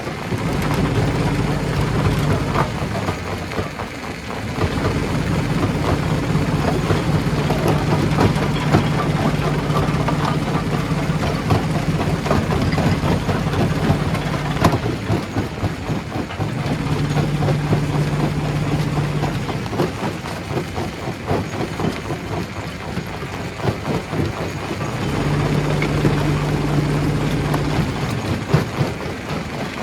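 Stone jaw crusher at work, rocks cracking and clattering continuously as they are crushed, over a low motor hum that drops out and comes back several times.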